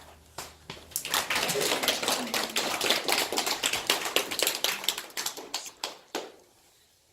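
A small group clapping: a few scattered claps, then a few seconds of applause that thins out and stops.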